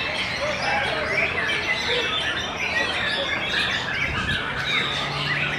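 White-rumped shama (murai batu) singing in full contest song: a dense, unbroken run of varied whistles, quick trills and chattering notes.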